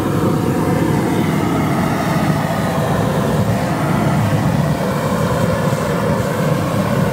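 Hose-fed hand-held gas roofing torch burning steadily, its flame heating and softening the rubber roofing at a seam.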